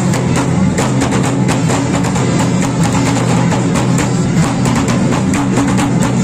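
Music with drums and percussion: a dense run of quick strikes over held low notes, at a steady level throughout.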